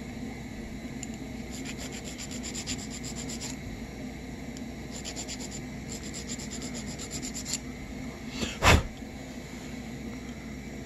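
Hand file rasping in rapid, even strokes across the burred threads of a brass pipe coupler, in two spells, to straighten out damaged threads. A single loud thump near the end.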